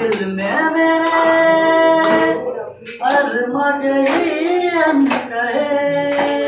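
A young man singing solo into a handheld microphone: a slow melody with long held notes, pausing briefly for breath about halfway through.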